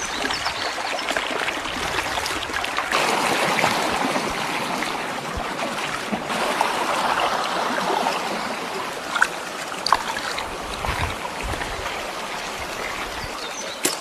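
Shallow water running and trickling steadily, a little stronger in the middle, with a few sharp clicks or knocks in the second half.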